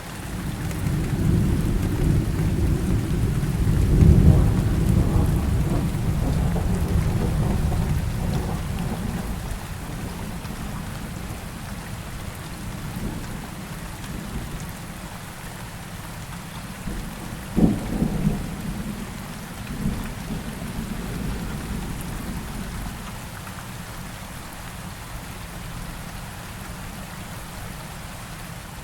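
Steady heavy rain with rolling thunder: a long low rumble swells in, peaks a few seconds in and dies away, then a shorter, sharper thunderclap comes just past the middle with smaller rumbles after it.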